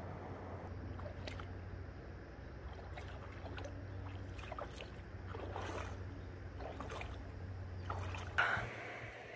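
Feet wading through shallow river water, irregular sloshing splashes over a steady low hum, with a louder splash near the end.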